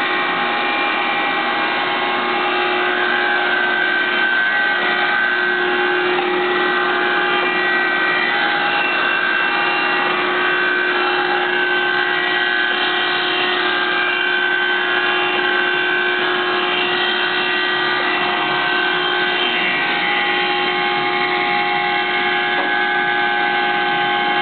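Wysong & Miles model 284 vertical chisel mortiser running idle on its belt-driven three-phase electric motor: a steady mechanical hum made of several held tones, with no cutting strokes.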